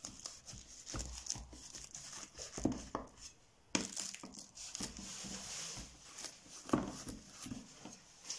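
Kitchen knife cutting through the crisp, flaky baked crust of a cheese börek: a run of crackling crunches with a short pause a little past three seconds in.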